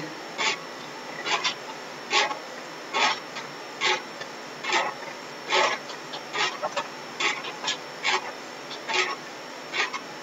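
Bicycle pedalled on an indoor trainer: a short rasping rub repeats at an even rhythm a little faster than once a second, with the pedal strokes.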